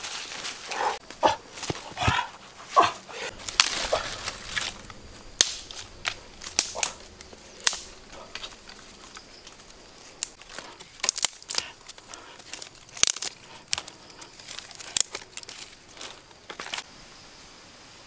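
Dry leaves and twigs crackling and snapping as they are handled and dropped onto the ground, a run of irregular sharp clicks, with a few short high calls from an animal in the first three seconds.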